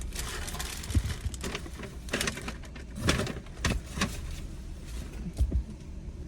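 Takeout food container being handled and covered: irregular rustling and clicking of packaging, with a few dull knocks.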